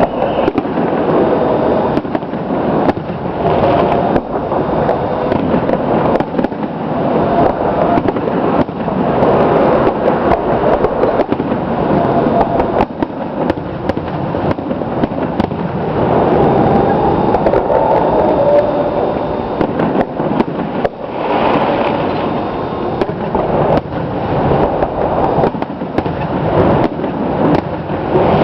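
A fireworks display, with many sharp bangs of bursting shells in quick succession over a continuous loud din.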